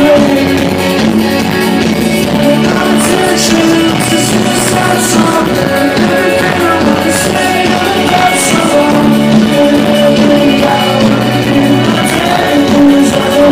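A rock band playing live: electric guitars and singing, loud and continuous, heard from within the audience.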